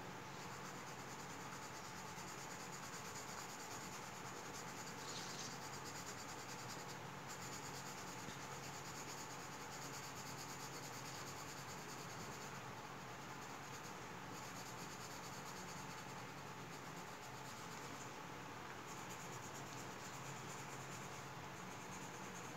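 Coloured pencil scratching on paper in rapid, short back-and-forth shading strokes. The sound is soft and steady, with a few brief pauses as the pencil lifts.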